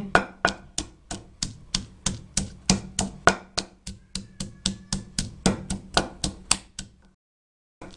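Wooden pestle pounding green chillies and garlic in a stone mortar: a steady run of sharp knocks, about three or four a second, that cuts off to silence about seven seconds in.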